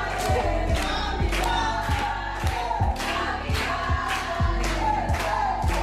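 Music with singing voices over a steady beat of about two strokes a second.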